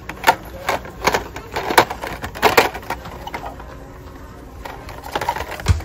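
A string of irregular clicks and knocks, several in the first half and one heavier thump near the end.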